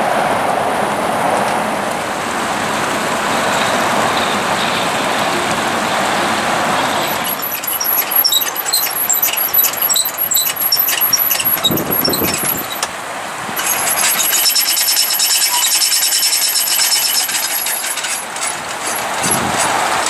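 A drift boat on its trailer backed down a launch into the river: a steady rushing noise at first, then sharp clicks and high squeaks about a third of the way in, and a steady high squeal for several seconds as the hull comes off the trailer.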